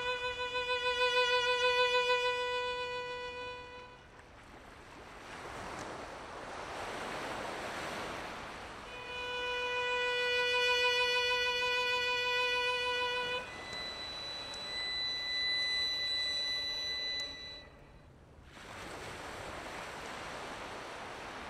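Solo violin playing slow, long held notes with vibrato, the last one much higher. Between the notes a soft rushing noise swells up and dies away.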